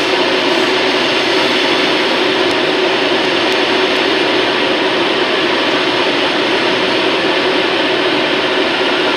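DB Regio double-deck regional train running past on the platform track: a steady, even noise of the coaches rolling over the rails, with a low steady hum underneath.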